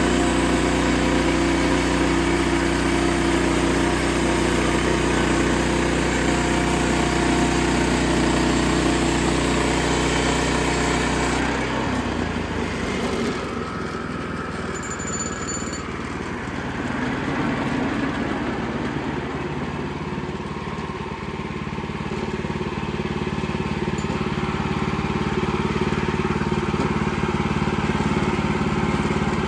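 Band sawmill running, its engine driving the blade through a log; about eleven seconds in the harsh cutting noise drops away and the engine keeps running steadily.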